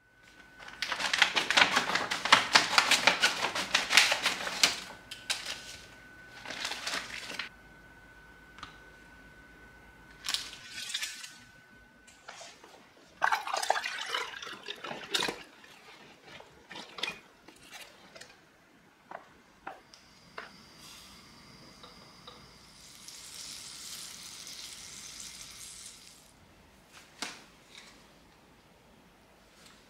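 Kitchen handling sounds: a louder stretch of rustling, splashing noise in the first few seconds, then soup poured from a pouch into a rice cooker's inner pot about halfway through. Scattered light clicks and knocks of containers and utensils follow, with a soft hiss for a few seconds near the end.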